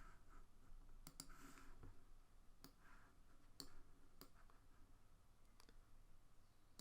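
Faint computer mouse clicks, a few scattered single clicks over quiet room tone.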